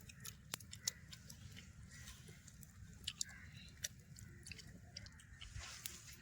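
Faint close-up chewing, with scattered small clicks of someone eating.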